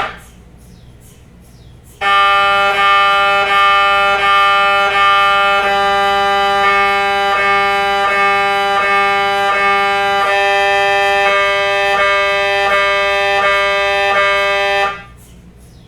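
MRI scanner's gradient coils sounding a loud, steady buzzing tone, pulsed about three times a second. It starts about two seconds in and cuts off abruptly near the end, after a single knock at the very start.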